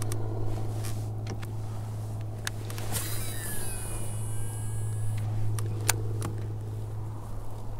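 A steady low hum throughout, with a few sharp clicks. About three seconds in, a fishing reel spins out on a cast, a whir that falls in pitch over about two seconds before stopping.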